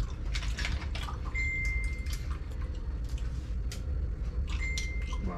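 Light clicks and clinks of steamed snail shells against a metal bowl and a small pick as the meat is picked out, over a steady low hum. A high steady tone sounds twice, each for about a second.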